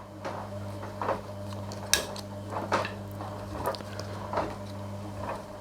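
Plastic quick-release buckle and nylon webbing strap being handled: a scatter of small clicks and light knocks as the strap is fed through the buckle, the sharpest about two seconds in.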